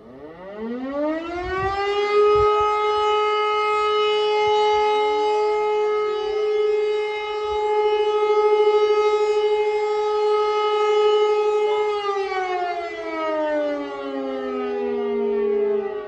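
E57 electromechanical civil defence sirens sounding in a siren test. The wail rises in pitch over the first two seconds, holds steady, and winds down from about twelve seconds in. A second siren's rise joins a few seconds after the first.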